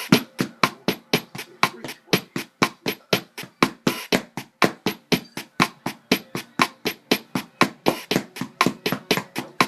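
A fast, steady run of sharp knocks or clicks, about four a second, from an object that is moving by itself.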